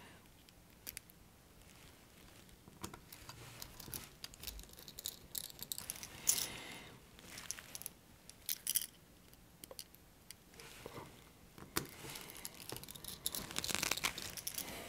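Light handling sounds from a precision screwdriver and small parts on an opened Nintendo Switch's circuit board: scattered faint clicks and short scrapes.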